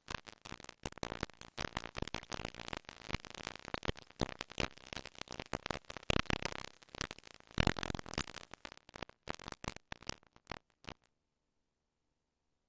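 Dense, irregular crackling clicks, many each second, with no voices among them, cutting off suddenly about eleven seconds in.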